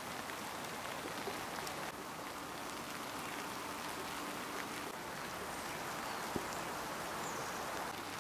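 Heavy rain falling steadily on the fly sheet of a 3F UL Lanshan 2 Pro tent, with scattered sharper drip ticks and one louder tap about six seconds in.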